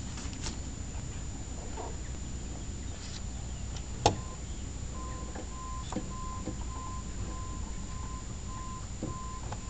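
A sharp click about four seconds in, followed by a repeating electronic beep, one steady tone switching on and off, over a low background rumble.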